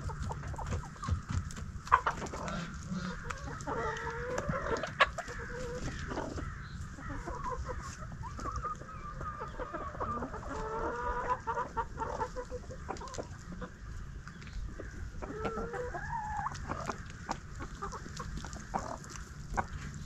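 Chickens clucking and calling, with a couple of sharp knocks about two and five seconds in.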